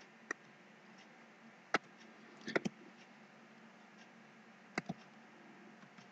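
Faint clicks of computer keyboard keys as a password is typed: single keystrokes with pauses between, a quick run of about three midway and a pair later on.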